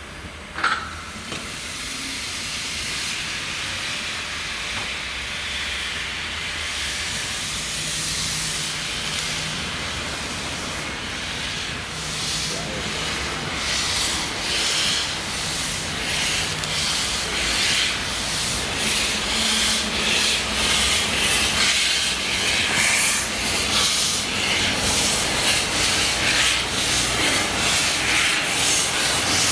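Metre-gauge 2-10-2 tank steam locomotive 99 7239-9 starting away with its train. A short whistle sounds about a second in, then steam hisses from its open cylinder drain cocks and builds into even chuffs about two a second as it gets under way.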